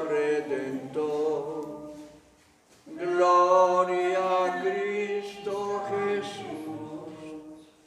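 Voices singing a church hymn in two long phrases, with a short breath pause about two and a half seconds in.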